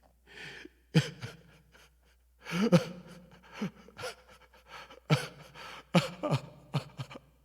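A man sobbing: a string of short, gasping cries, each falling in pitch, with breaths between them.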